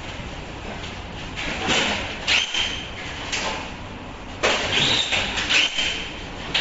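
Paperboard mask boxes being handled: lids flipped open and boxes slid and lifted against each other in several scraping, rustling bursts, some with a thin high squeak of board rubbing on board.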